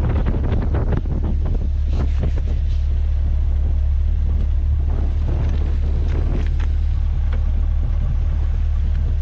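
Wind buffeting the microphone: a loud, steady low rumble with irregular crackles.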